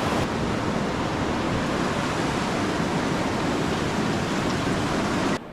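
Waterfall's rushing water, a loud steady wash of noise that cuts off abruptly near the end.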